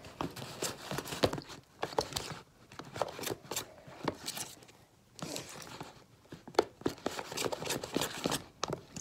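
A spoon stirring glue and shaving cream together in a bowl, making an irregular run of sticky squelching, scraping and clicking noises as the foam is worked into the glue for fluffy slime.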